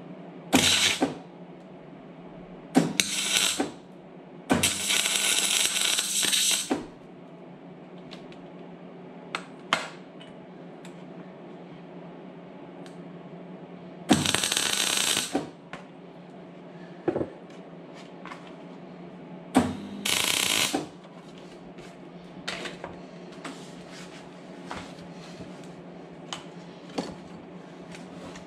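A power tool run in five short bursts of one to two seconds each, with light metal clicks and taps between them, over a steady low hum.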